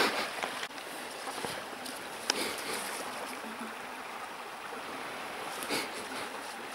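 Steady rushing of a small forest river's water, with a few short knocks on top, the loudest at the very start.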